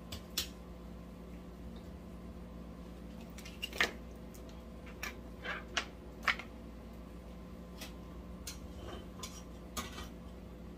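Kitchen tongs clicking and tapping as cooked beef ribs are picked up and moved on a plastic cutting board: a few scattered sharp clicks, bunched together a few seconds in and once more near the end, over a steady low hum.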